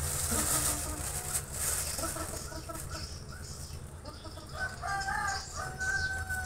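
Bangkok gamecock roosters: short clucks in the first couple of seconds, then a rooster crowing once near the end, rising and ending in a long held note.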